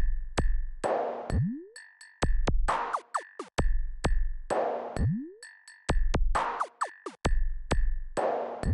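Electronic background music with a drum-machine beat: deep low drum hits, sharp noisy hits and swooping rising synth tones over a steady high note, in a loop that repeats about every three and a half seconds.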